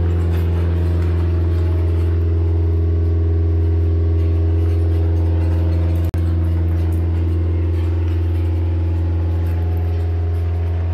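An engine running steadily at a constant speed, with a momentary drop-out about six seconds in.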